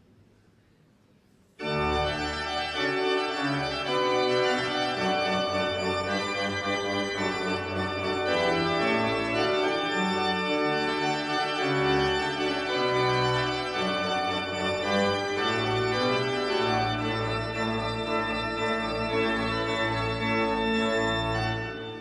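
Organ music: sustained chords over a moving bass line, starting suddenly about two seconds in.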